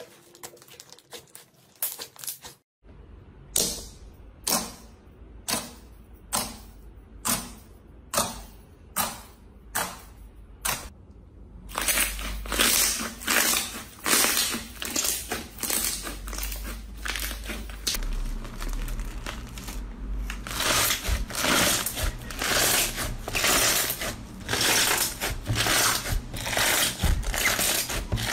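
Hands squeezing, pressing and stretching slime, making wet clicks and pops as air pockets burst. After a short break about three seconds in, the pops come evenly about twice a second, then give way near the middle to denser, louder crackling and squishing.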